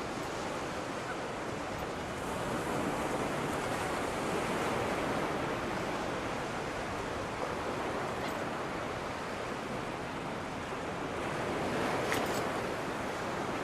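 Surf washing ashore: a steady rushing noise that swells and eases gently.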